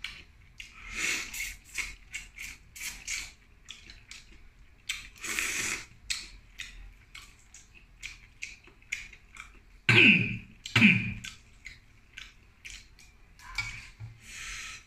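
Close-up eating sounds of a person eating shellfish and shrimp by hand: many small clicks of shells and wet mouth noises, a short slurp about five seconds in, and two louder mouth noises about ten and eleven seconds in.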